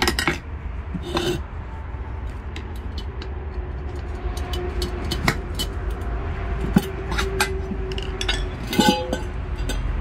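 Screwdrivers prying and scraping against a small steel wheel rim and rubber tyre bead, with irregular metallic clicks and clinks, over a steady low rumble.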